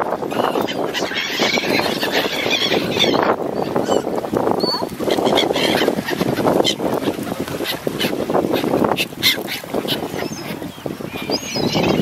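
A crowded mixed flock of mallards, coots and gulls calling: a continuous dense chatter of duck quacking, with a few short, high gull cries.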